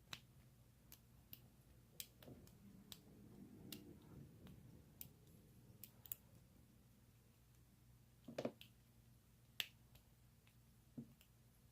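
Faint, scattered small metallic clicks of a lock pick and tension wrench working the wafers in an old Yale wafer padlock, with a light rustle of handling in the hand.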